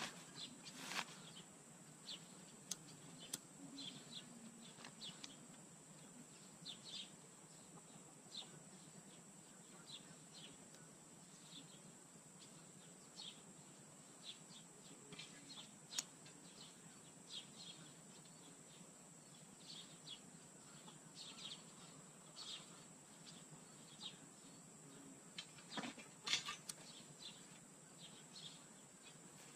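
Faint, quiet background with scattered short bird chirps, and a few light clicks and knocks of wooden boards and kindling being shifted in a metal fire pit.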